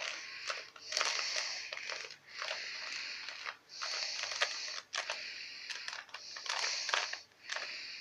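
2x2x2 Rubik's cube being scrambled: its plastic layers turned in quick runs, giving a clicking, rasping sound in stretches of about a second with brief pauses between.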